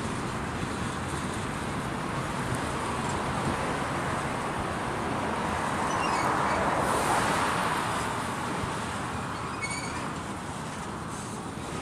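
Freight train of empty flatcars rolling past, a steady rumble and clatter of steel wheels on rail that swells louder for a couple of seconds about halfway through.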